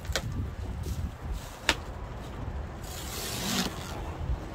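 Boxes and packaging being handled: two sharp clicks, then a brief rustle about three seconds in, over a steady low rumble.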